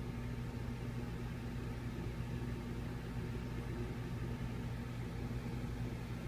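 Steady low electrical hum with a hiss: room tone, with nothing else happening.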